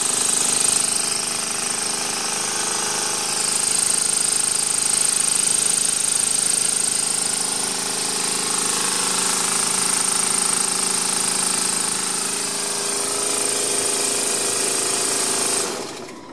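Small homemade steam engine running, with a steady hiss of escaping steam from the boiler venting around it. The sound cuts off suddenly near the end.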